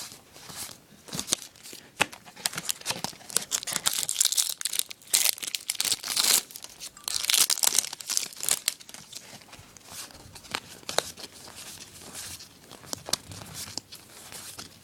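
A hockey card pack's wrapper being torn open and crinkled, in several loud bursts through the middle, with small clicks and taps of cards being handled throughout.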